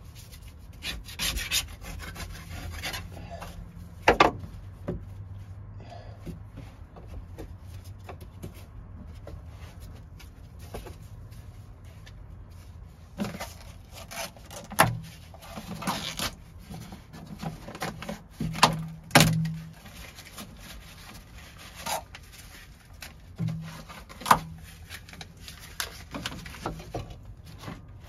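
Hand scraper rasping at crusted grime and old coating on the bare steel inner rear wheel arch of a 1972 Toyota Celica, in irregular strokes. Several sharp knocks against the metal stand out, the loudest about four seconds in and near the middle.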